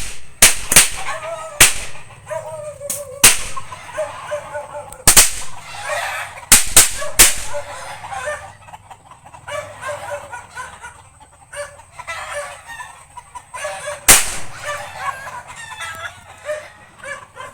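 Mini triangle firecrackers going off one after another: about a dozen sharp bangs at irregular intervals, most in the first seven seconds, with one more about fourteen seconds in.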